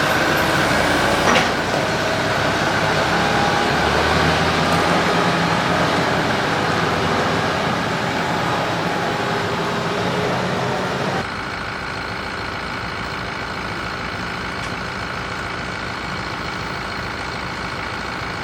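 Diesel tractor engine running steadily in the hay field, with one click a little over a second in. About eleven seconds in the sound changes suddenly to a slightly quieter, evenly pulsing running.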